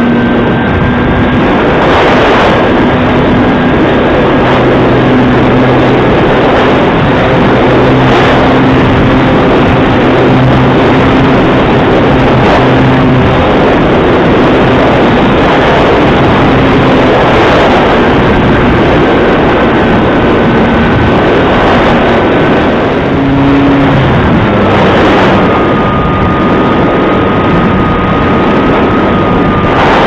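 The Bixler 3 RC plane's electric motor and propeller running steadily, heard from the onboard camera with heavy rushing airflow noise. A thin motor whine holds steady, then steps down in pitch about three-quarters of the way through as the throttle eases.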